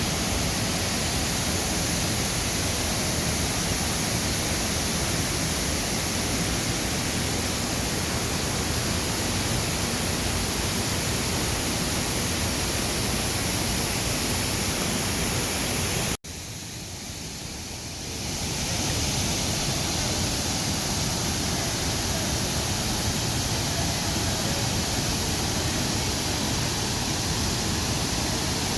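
Waterfall rushing in a steady, loud roar. About two-thirds of the way in it drops off suddenly, stays quieter for a couple of seconds, then swells back to full strength.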